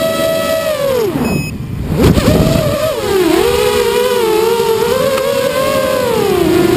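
FPV quadcopter's electric motors and propellers whining, the pitch rising and falling with the throttle. About a second in the whine drops away as the throttle is cut, then surges back at its loudest at about two seconds and keeps wavering up and down.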